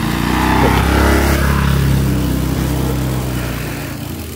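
A small automatic motor scooter riding past close by, its engine loud at first and fading away over about four seconds.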